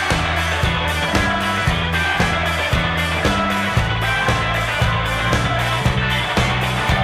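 Live indie rock band playing an instrumental stretch: electric guitar and bass riff over drums with a steady, even beat, no singing.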